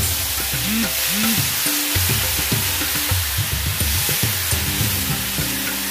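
Wet spice paste frying in hot oil in a kadai, sizzling steadily while a silicone spatula stirs it, over background music.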